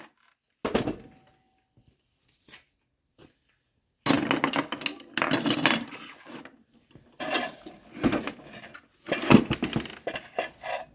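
Coins and loose metal rattling and clattering inside a 1963 payphone's coin box as it is worked open. A single sharp click comes about a second in, then near silence, then a long run of clattering from about four seconds in.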